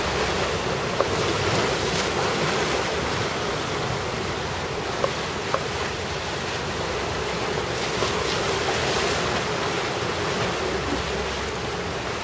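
Steady rushing of wind across the microphone over rough surf, the heavy seas raised by a typhoon's outer winds.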